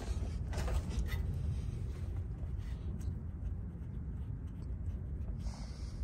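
Small scraping and clicking of hands working at a hydraulic hose fitting on a PTO pump, over a steady low rumble.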